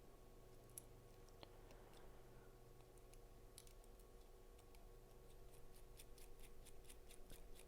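Near silence with faint, small metallic clicks and ticks, sparse at first and coming several times a second in the second half. A small driver is turning a scale screw into a Spyderco Delica folding knife, drawing the new scales down.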